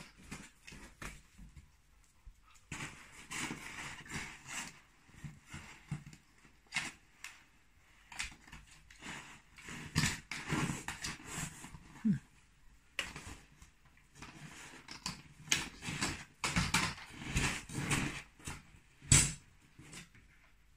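A Siberian husky nosing and pawing at a fabric blanket on a tile floor: bursts of cloth rustling with scattered clicks and knocks from claws and a plastic treat ball, and one sharp knock near the end.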